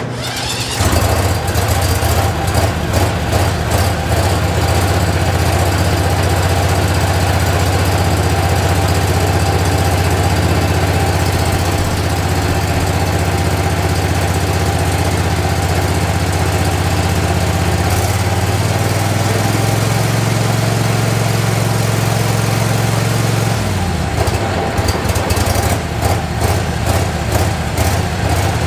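Garden tractor's Briggs & Stratton engine starting almost at once and running steadily, on its first start after a fuel line and filter replacement. Its speed shifts about 18 seconds in and again near 24 seconds.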